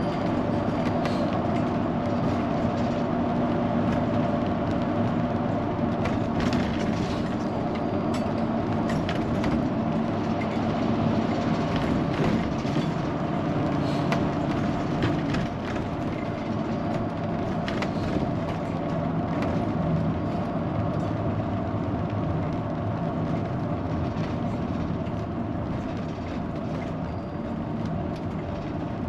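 Class A motorhome driving, heard from inside the cab: a steady engine and road drone with a constant whine, and frequent light clicks and rattles.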